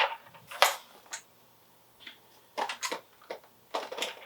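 Handling noise from a metal airsoft M16-style rifle: a series of irregular sharp clicks and knocks as its parts are worked and tapped, the loudest a little over half a second in.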